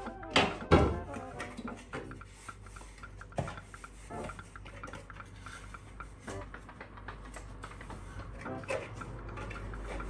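Plastic and glass refrigerator bins and shelves knocking against each other and the sink counter as they are handled, with two loud knocks about half a second in, then softer knocks and the rub of a cloth towel drying them.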